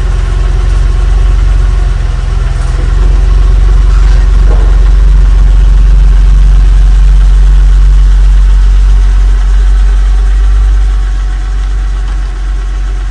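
Porsche 996 911's flat-six engine idling steadily, somewhat louder through the middle and easing off near the end.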